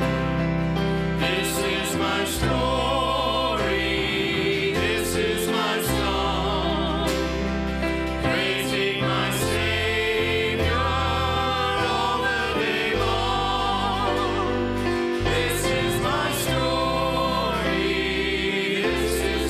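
Church worship band playing a gospel hymn: a man sings lead into a microphone over electric guitar, bass guitar, acoustic guitar and a drum kit with cymbal hits.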